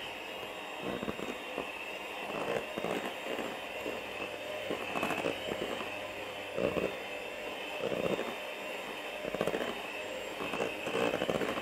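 Electric hand mixer running with a steady whine, its beaters churning a thick butter, margarine and egg-yolk dough in a stainless steel bowl. Irregular louder scrapes and knocks come about every second or so as the beaters run against the side of the bowl.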